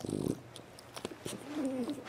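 French Bulldog snoring in its sleep: a short rasping snort at the start, then a wavering, whistling tone through the nose in the second half, with small clicking mouth noises.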